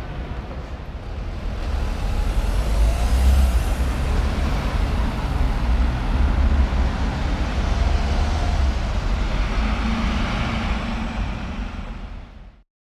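Road traffic: cars and vans driving past on a city street, a steady rumble of engines and tyres that grows louder about two seconds in, then fades out near the end.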